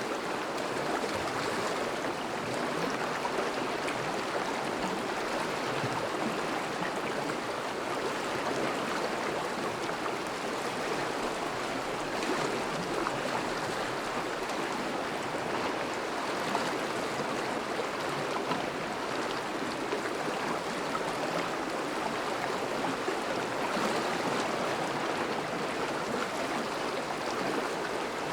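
A thawing river flowing, a steady rush and burble of water.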